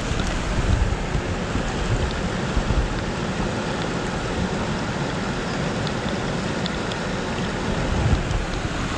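River water rushing over rocks in a steady wash of noise, with a low rumble of wind on the microphone.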